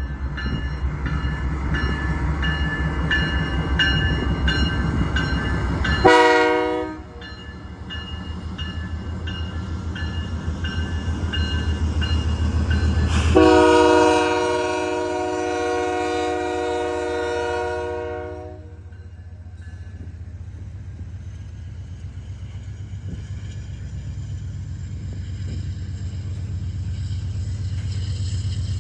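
Freight train led by a CP AC4400CW diesel locomotive, its rumble running under two horn blasts: a short one about six seconds in and a long one of about five seconds from about thirteen seconds in. After the horn the rumble drops, then slowly builds again.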